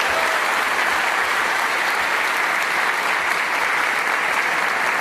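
A large audience applauding, a dense and steady clapping that holds at an even level.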